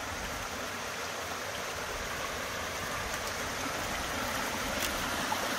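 A small forest creek rushing down over rocks below a beaver dam, a steady splashing flow that grows a little louder toward the end.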